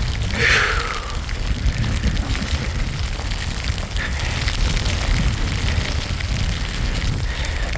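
Strong wind buffeting the microphone in a mountain snowstorm: a steady low rumble with a hiss over it. A short falling sound comes about half a second in.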